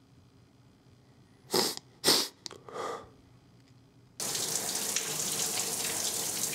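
A man sniffling while crying: two sharp sniffs, then a softer one. From about four seconds in, a shower runs with a steady hiss of spray.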